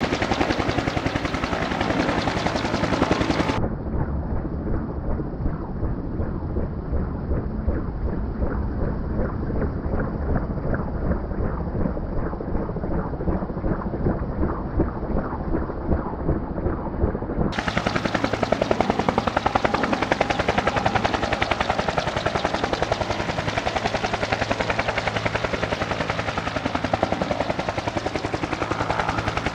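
Fuji-Bell 204B-2 helicopter hover-taxiing, its two-bladed main rotor beating in a rapid, steady rhythm. For about fourteen seconds from about four seconds in, the sound is muffled, its highs cut off.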